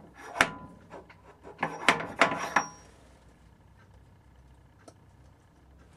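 A steel MT5 dead center clinking and knocking against the mini lathe's headstock spindle bore as it is pushed in by hand, a few sharp metallic clinks within the first three seconds. The taper will not seat: it hits a ledge inside the bore and stops short.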